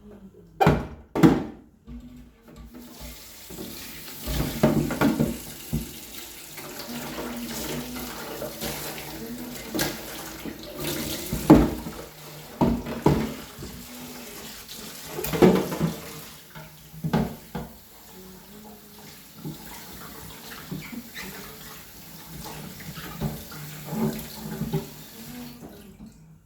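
Water tap running into a sink, starting about three seconds in and shutting off near the end, with repeated knocks and clunks of things being handled in the sink.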